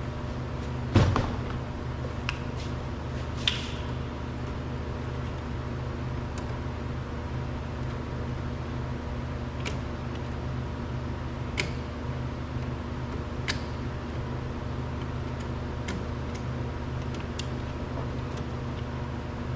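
Light clicks and taps of plastic door-trim parts being handled, with one louder knock about a second in, over a steady low hum.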